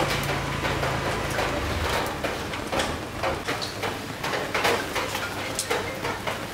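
Pork belly grilling on a wire rack over hot charcoal: irregular crackling pops, with a low hum that fades out about two seconds in.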